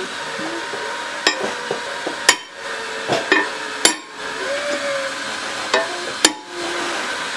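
Ball-peen hammer striking a metal cover plate laid on a welded engine crankcase: about six separate sharp blows a second or so apart, some harder than others. The blows drive the plate onto transfer punches set in the bolt holes, marking the hole centres on the cover.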